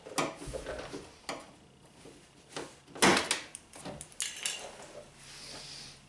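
Plastic door-panel trim clip being worked out of a car door, with the loose door panel handled against it: a run of sharp plastic clicks and clatters, the loudest about three seconds in.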